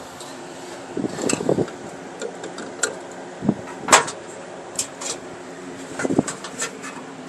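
Hands working a car wire's insulation with wire strippers: scattered small clicks and snaps, the sharpest about four seconds in, over a steady low hum.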